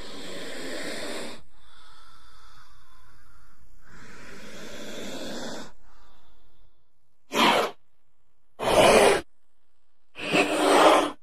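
King cobra hissing: two long, drawn-out hisses, then three short, louder hisses in quick succession in the second half.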